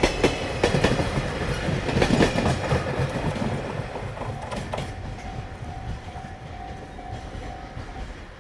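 Wheels of a freight train's container wagons clattering over rail joints. The clatter is loud for about the first three seconds, then fades as the train draws away. A steady high tone sets in about five seconds in and cuts off shortly before the end.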